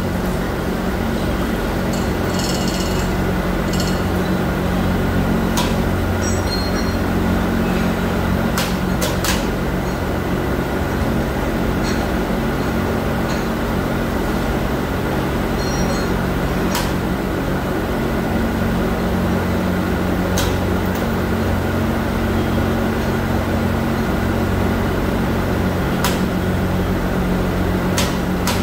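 Steady machinery hum of an injection-moulding shop, with occasional brief metallic clinks from the overhead chain hoist's chain and hook.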